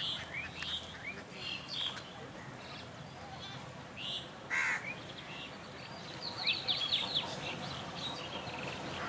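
Birds chirping and calling: short scattered calls, a louder call about halfway through and a quick run of rapid notes about two-thirds in, over a faint low rumble.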